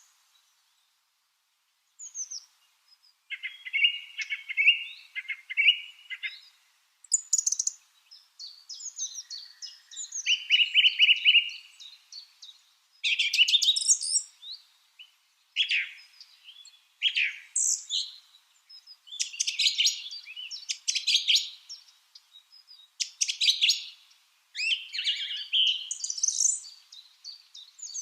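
Lovebirds chirping in quick, high, overlapping bursts and short trills, starting about two seconds in and carrying on with brief pauses.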